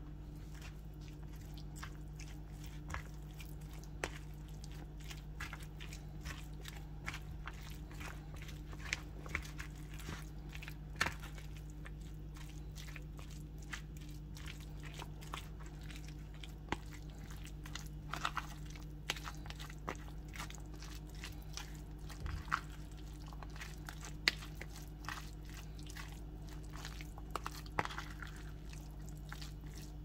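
Plastic fork stirring tuna salad with mayonnaise, corn and onion in a plastic container: irregular clicks and scrapes of the fork against the container with soft wet squelching of the mix, a steady low hum underneath.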